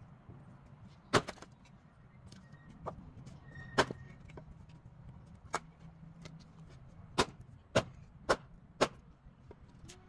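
Small axe chopping firewood: sharp wood strikes, two spaced apart, then four in quick succession about half a second apart near the end.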